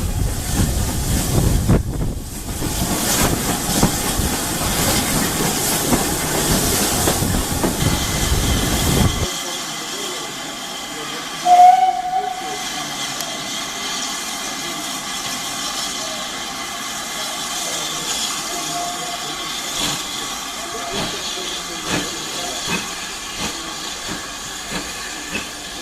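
GWR steam locomotive hissing steam, with one short whistle blast about a third of the way in. Before that, a louder rushing noise cuts off abruptly about nine seconds in.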